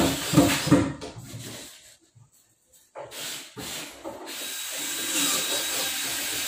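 Power drill at work on modular cabinet fittings. It runs in short choppy spurts at first, stops for about a second, then runs steadily with a faint high whine until near the end.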